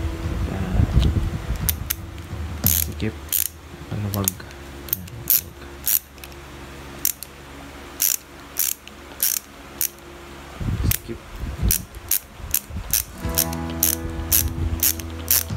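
Ingco 13-in-1 ratchet screwdriver being worked back and forth, its ratchet pawl clicking in quick irregular runs of sharp ticks.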